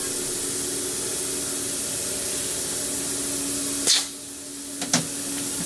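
A steady hiss of rushing air with a low hum under it. Just before four seconds in it cuts out after a click and comes back after a second click about a second later.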